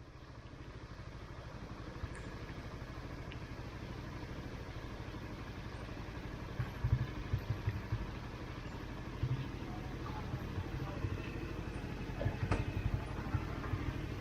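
Motorcycle engine running steadily, fading in over the first second or two, over a haze of wind and road noise, with a few short knocks about halfway through and again near the end.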